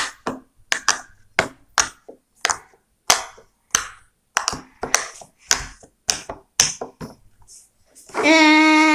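Push-cells of a squeeze fidget toy being pressed one after another, giving a run of sharp clicks at about two or three a second. Near the end comes a steady held tone lasting about a second.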